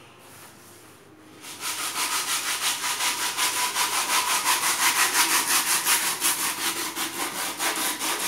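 Sandpaper rubbed by hand back and forth over a wooden box, fast scratchy strokes about four a second, starting about a second and a half in.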